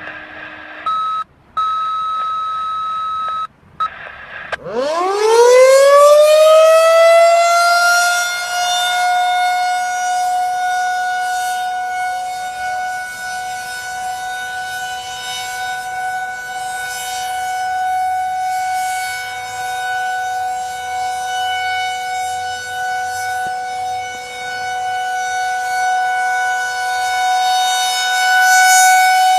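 A Federal Signal 2001-SRNB outdoor warning siren winds up with a steep rising wail about four seconds in, then holds a steady alert tone with its loudness slowly swelling and fading. Before the wind-up there are a few seconds of steady, broken electronic tones.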